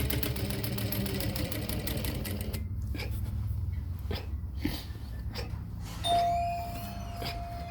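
Juki DDL-8700 industrial lockstitch sewing machine stitching through leather with rapid, even needle strokes, stopping about two and a half seconds in while a low motor hum and a few clicks carry on. About six seconds in, a steady ringing tone like a doorbell chime starts and holds.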